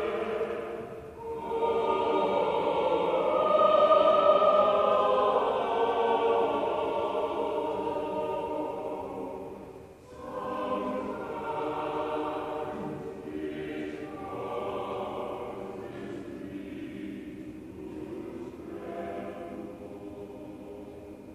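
Robed church choir singing in long held notes, in phrases that break about a second in and again about ten seconds in. Fuller and louder in the first half, softer in the second.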